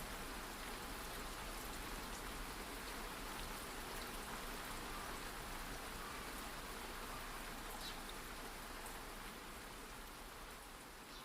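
Steady rain falling: an even hiss with scattered faint drop ticks, slowly fading toward the end.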